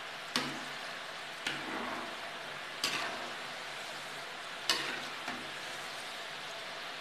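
Rice-flour fingers deep-frying in hot oil in a metal kadhai, a steady sizzle. A metal slotted skimmer clinks against the pan five times, at uneven intervals, as the pieces are stirred and separated in the oil.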